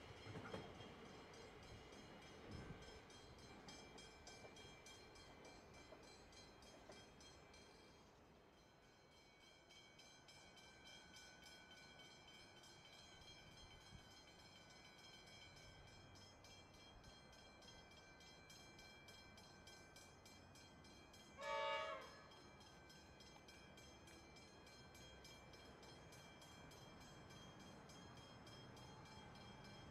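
An approaching Comeng electric suburban train sounds one short horn blast about two-thirds of the way through. Around it there is only faint train rumble: a departing train fading over the first few seconds, and the approaching train slowly growing louder near the end.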